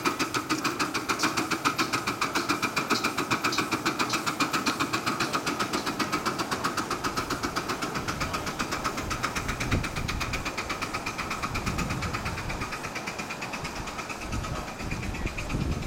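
Live steam miniature locomotives running in tandem, exhaust chuffing in rapid, even beats as the train passes, fading a little near the end.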